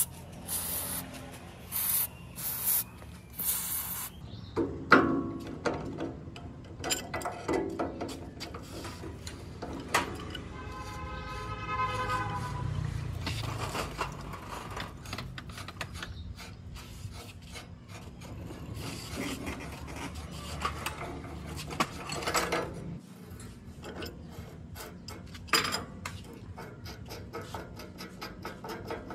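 Hand-tool work on metal parts: irregular scraping, rubbing and clicking. Several sharp clicks come in the first few seconds, and a drawn-out squeak lasting about three seconds comes about ten seconds in.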